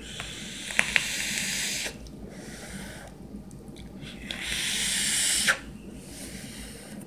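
Rebuildable dripping atomizer on a vape mod hissing and sizzling as it is fired and drawn on, in two puffs: one of about two seconds with a couple of sharp crackles from the coil, then a shorter one ending in a click.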